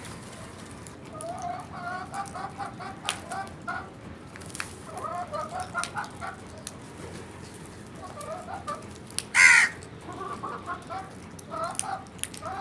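Crows calling: several runs of quick, low clucking notes, about five a second, with scattered sharp clicks, and one loud harsh caw about nine and a half seconds in.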